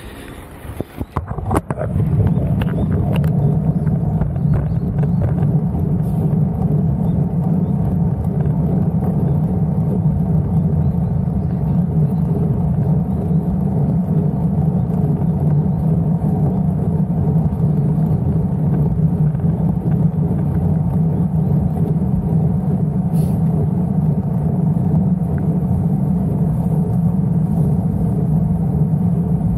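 Steady low rumble of a running motor vehicle, with a constant hum; it settles in about two seconds in after a few clicks.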